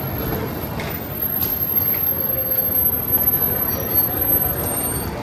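A large bus running close by, with steady road traffic noise.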